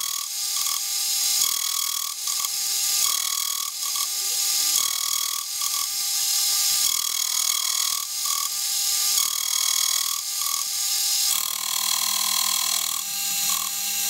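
Milling machine running a slitting saw through a metal workpiece, cutting a slot in successive deeper passes. A steady mechanical cutting noise, with tones that come and go every second or two.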